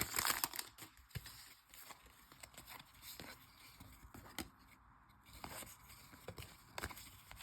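Trading cards being handled and flipped through by hand: a faint paper scrape, then soft clicks and slides about once a second as cards are moved one after another.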